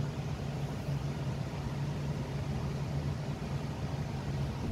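A steady low hum under an even hiss, unchanging throughout, like a motor or engine running.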